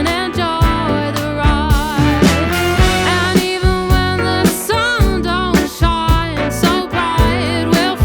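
Background music: an upbeat song with singing over a steady drum beat and bass.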